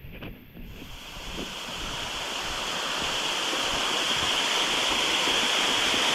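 Waterfall rushing, growing louder over the first few seconds and then holding steady.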